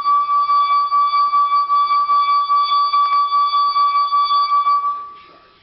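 Wine glass singing: a wet fingertip rubbed around the rim draws a steady ringing tone with fainter overtones above it. The tone pulses quickly and evenly in loudness and fades out near the end.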